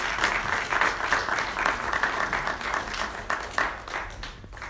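Congregation applauding, the clapping thinning out near the end.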